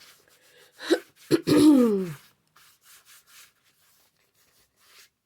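A woman's short wordless vocal sound, falling in pitch, about a second in, followed by a few faint rubbing and scuffing sounds of hands working paper and fabric.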